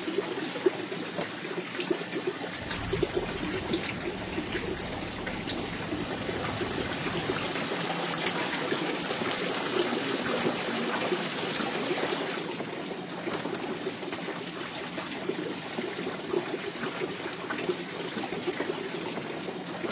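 Running water trickling steadily, with a low rumble for a few seconds early in the sound.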